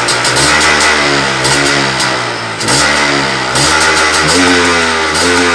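Freshly rebuilt MZ ETZ 301 two-stroke single-cylinder motorcycle engine being revved by hand at the throttle, its speed rising and falling several times in quick blips. The engine has just been newly assembled and is still awaiting fine tuning.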